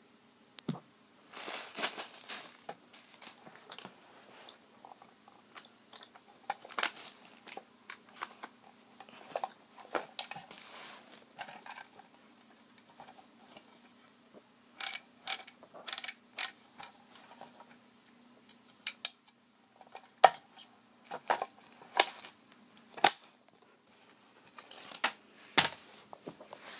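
Handling noise from gear being picked up and moved on a carpet: irregular clicks, taps and short rustles. A quick run of sharp clicks comes around the middle, and another cluster comes in the last third.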